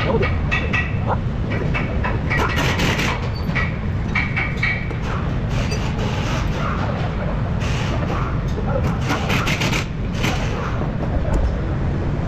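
Short metallic clicks and knocks as rear stabilizer link parts and tools are handled under the truck, over a steady low rumble, with faint voices in the background.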